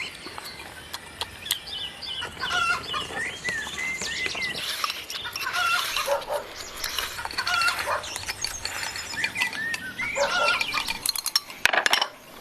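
Chickens clucking and chirping in many short, scattered calls, with a few sharp clicks near the end.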